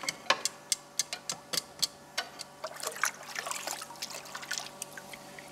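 Freshly quenched steel flat bit tongs being worked open and shut over the quench water: sharp irregular clicks, several a second, with water trickling and dripping, the clicks dying away near the end. The riveted joint is moving freely now that it has cooled.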